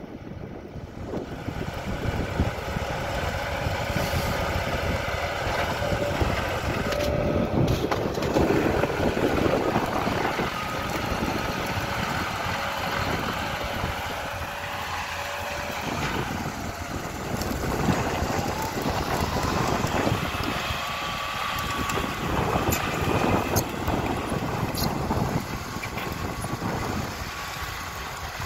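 John Deere tractor's diesel engine running steadily under load, pulling a mounted reversible plough through the soil. It is loud close by and fades a little near the end as the tractor pulls away.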